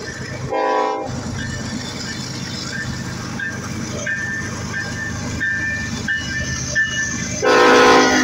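Diesel locomotive horn on an approaching BNSF stack train: a short blast about half a second in, then a long, loud blast starting near the end. Under it runs the steady rumble of the train, with a grade-crossing bell dinging repeatedly.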